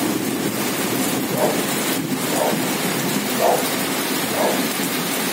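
Heavy downpour of big raindrops: a steady rushing hiss of pouring rain, with a short tap repeating about once a second.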